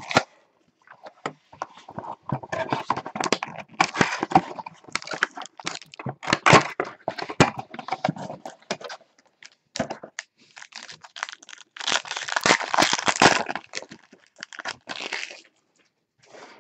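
Plastic wrapper crinkling and tearing as a sealed 2017 Contenders Optic football card box is opened by hand, with sharp clicks and rustles from the cardboard box and cards. A dense stretch of loud crinkling comes about twelve seconds in.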